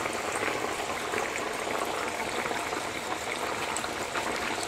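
Small semolina puris deep-frying in hot oil in a kadhai: a steady sizzle of vigorously bubbling oil with fine crackles.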